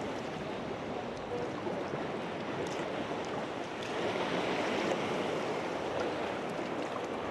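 Sea swell washing and surging around a kayak: a steady rush of water that builds about four seconds in.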